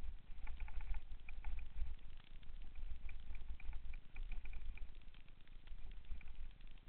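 Wind buffeting a helmet-mounted camera's microphone, a gusty low rumble, while a mountain bike rolls down dirt singletrack with rattling and quick clicks, busiest in the first few seconds.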